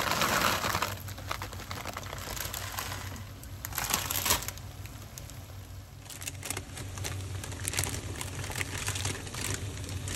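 Clear plastic bag crinkling and rustling as fresh noodles are shaken out of it, with louder rustles near the start and about four seconds in, then scattered small ticks.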